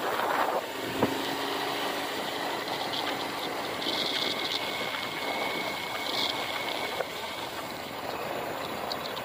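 Motorcycle engine running steadily while riding along a road, with wind rushing over the microphone. A single sharp knock about a second in.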